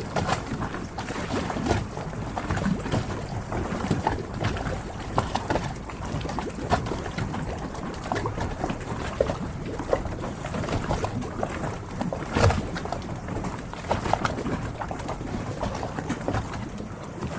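Harbour water lapping and sloshing against the hulls of moored yachts, with irregular small knocks and splashes.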